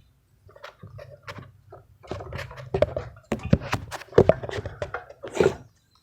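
A run of irregular knocks and thuds, sparse at first and coming thick and fast from about two seconds in, over a faint steady low hum.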